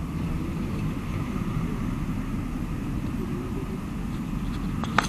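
Low, steady rumble of street traffic, with cars driving past. A sharp click sounds near the end.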